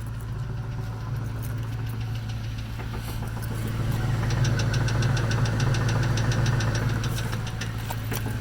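1998 Ford Mustang GT's 4.6-litre V8 running, growing louder about four seconds in, with a fast, even knocking tick of about five or six a second over the drone. The owner is unsure whether the knock is rod knock or a broken clutch.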